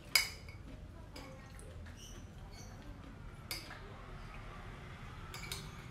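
Eating close to the microphone: chewing with short high squeaks from the mouth, and sharp clinks of a metal spoon or fork on the plate, the loudest just after the start, another about three and a half seconds in and two more near the end.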